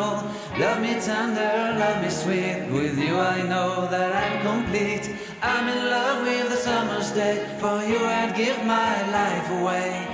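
Background music: a song with a sung vocal line over sustained accompaniment.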